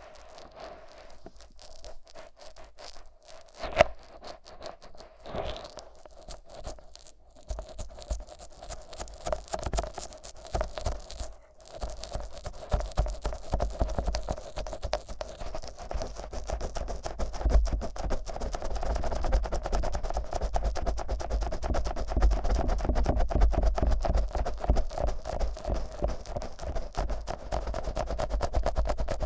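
Fingers rubbing thick Vaseline over the silicone ears of a 3Dio binaural microphone, making sticky, wet scraping strokes close to the mic with a deep rumble. The strokes are sparse at first and become steady and louder from about twelve seconds in, with a sharp click a little under four seconds in.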